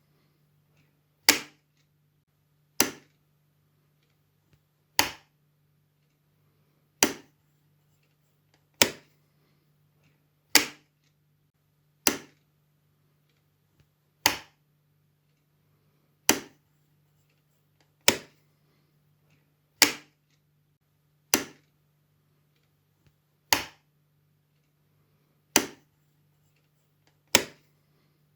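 Wall light switch being flipped on and off: a single sharp click about every one and a half to two seconds, fifteen times, with a faint steady hum underneath.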